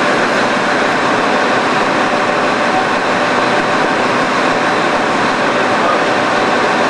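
Steady, loud mechanical drone and hiss of industrial hangar background noise, unchanging, with no knocks or clanks.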